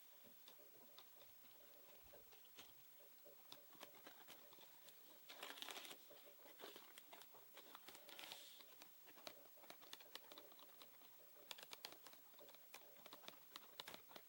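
Soft, close-miked ASMR handling sounds: many light, irregular taps and clicks, with two brief rustling, crinkly swells about five and eight seconds in.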